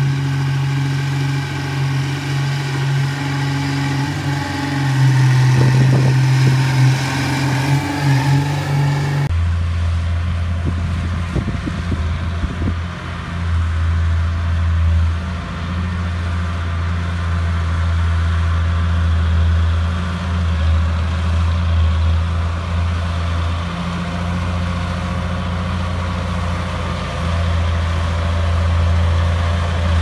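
D31 crawler bulldozer's diesel engine running steadily under load as the dozer pushes dirt, a strong low engine drone. About nine seconds in, the engine note drops abruptly to a lower, deeper drone.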